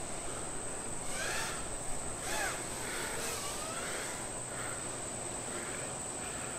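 Outdoor ambience of a steady high-pitched insect drone, with a few faint, short rising-and-falling calls in the first few seconds.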